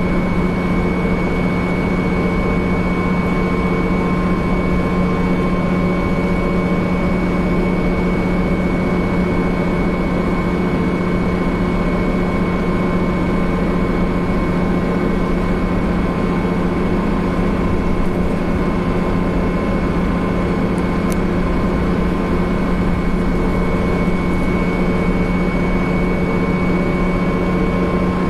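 Steady running noise inside Hamburger Hochbahn vehicle 7143: a constant low hum with two steady high-pitched whines over it, unchanging throughout.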